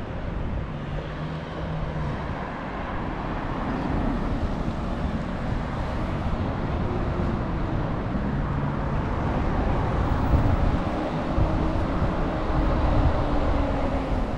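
Road traffic on a town street: car engines and tyres passing, louder in the second half.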